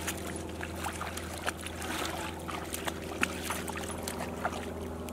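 Light splashing of shallow river water as a dog wades, over a steady low mechanical hum with several tones.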